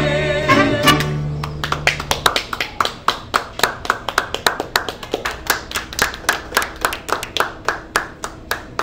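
A mariachi band with trumpets finishes a song on a held final chord, then a few people applaud with steady, separate claps for several seconds.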